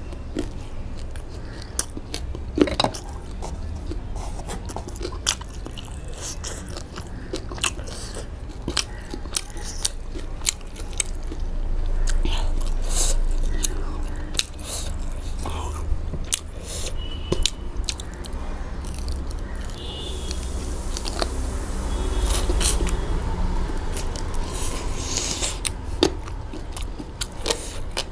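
Close-miked eating: biting and chewing food with many short, sharp mouth clicks and smacks, and a couple of longer, noisier stretches of chewing.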